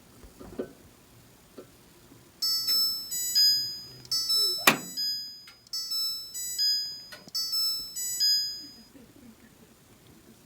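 Maytag laundry control panel's electronic beeper playing a short tune of about a dozen buzzy, quickly fading notes at stepping pitches, starting about two seconds in. A sharp click sounds near the middle of the tune.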